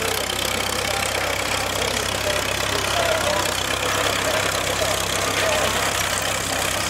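Vintage Massey-Harris tractor engine running at a low, steady speed as it pulls a reaper-binder past, with faint voices in the background.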